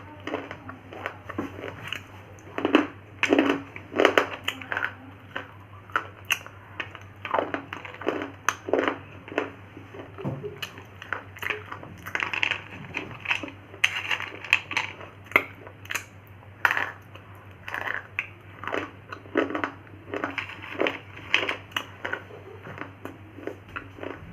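Thin slate pencils being bitten and chewed close to the microphone: irregular sharp crunches, often one or two a second, over a steady low hum.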